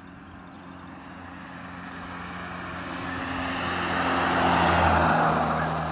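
A car passing close by: its engine hum and tyre noise grow steadily louder, peak about five seconds in, then begin to fade.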